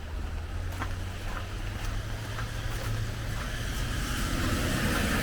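A car approaching on a wet road, its tyre hiss growing louder toward the end, over a steady low rumble and the light clicks of footsteps.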